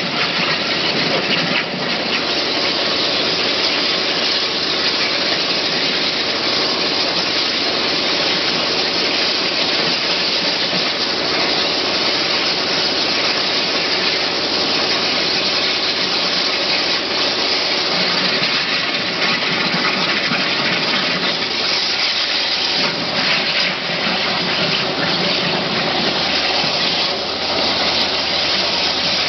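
Abrasive waterjet cutter cutting through 5 mm mild steel plate: the high-pressure jet makes a loud, steady hiss.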